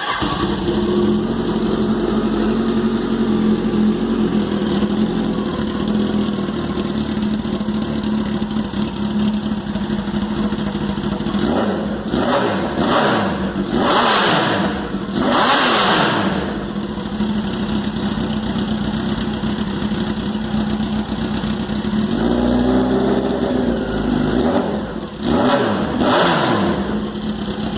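Kawasaki ZX10 inline-four motorcycle engine with a straight-through exhaust (just the pipe, no muffler), idling loudly and then revved in a run of sharp blips about twelve to sixteen seconds in and again near the end.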